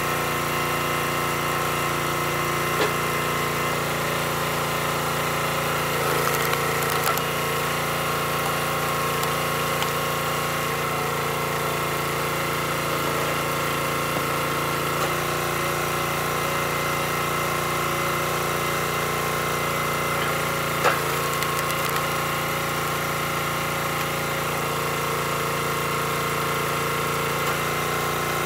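Small gas engine of a Black Diamond hydraulic log splitter running steadily, its tone shifting as the ram is worked to split rounds of firewood. A few short sharp knocks or cracks, the loudest about three-quarters of the way through.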